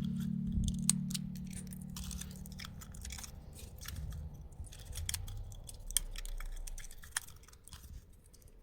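Small plastic building pieces being handled and snapped together: scattered sharp clicks and rattles at an uneven pace, over a low hum that fades out over the first three seconds.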